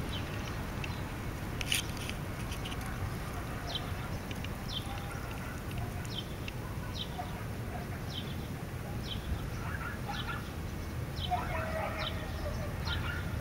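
A bird chirping over and over in short, high notes, over a steady low rumble. Near the end some lower, fuller calls join in.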